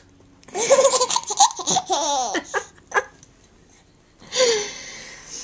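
High-pitched laughter in two bursts: a long run of laughing starting about half a second in, and a shorter laugh with a falling pitch near the end.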